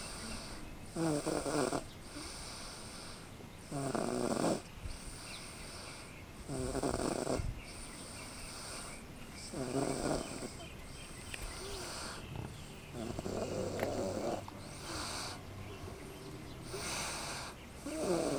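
A sleeping baby snoring in a car seat: a rough snore comes every three to four seconds, six in all, with a longer pause before the last one.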